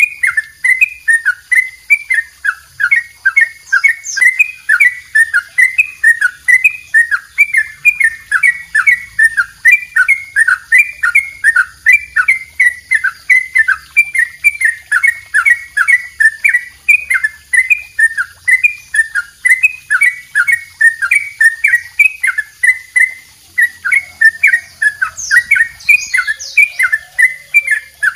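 Yellow-vented bulbul (trucukan) singing its long 'double roll': an unbroken run of quick, bubbly, repeated notes, several to the second, without a pause. A second bird chirps faintly and higher just after the start and again near the end.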